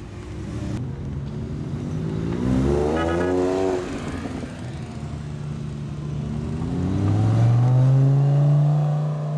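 Supercar engines accelerating away. A Ferrari 430 Scuderia's V8 revs up through a rising sweep that peaks about three seconds in. Then a Lamborghini Gallardo's V10 builds in pitch and loudness as it drives past, loudest near the end.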